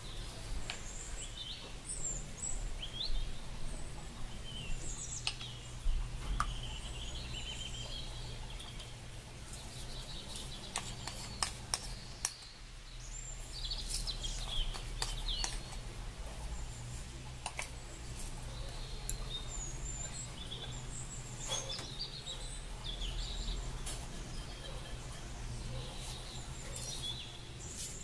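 Small birds chirping and calling in short rising and falling notes, over a low steady hum, with a few sharp clicks scattered through.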